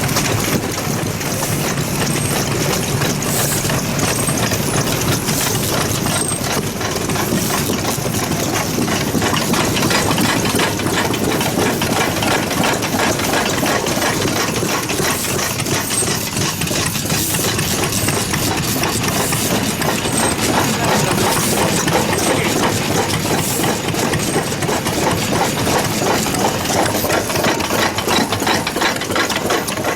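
Vintage stationary engines running steadily with a fast, even knocking beat.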